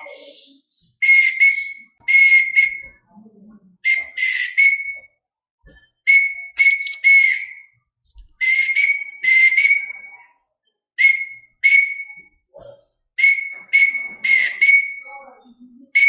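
A whistle blown in short and long blasts, slow Morse code dots and dashes on one steady high pitch with pauses between letters, sending part of the word 'crucified'.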